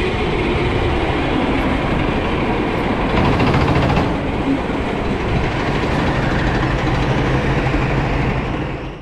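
Sodi rental kart running, heard from a camera mounted on the kart: a steady engine note under a rumbling haze of chassis and tyre noise. It fades out near the end.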